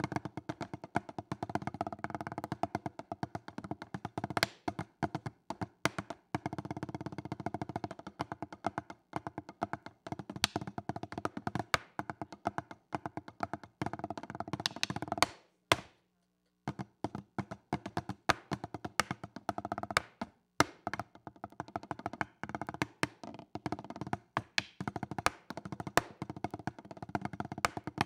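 Drumsticks playing fast, dense drumline-style patterns on a tabletop set of practice pads laid out like marching tenor drums (quads), sharp dry strokes moving between pads. The playing stops dead for about a second just past the middle, then picks up again.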